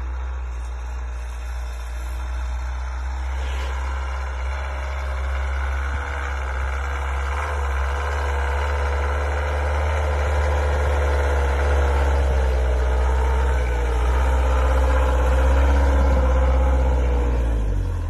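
Old Land Rover Series pickup's engine running as it drives slowly through snow toward the microphone, a steady low rumble growing louder as it comes closer, its note wavering a little with the throttle.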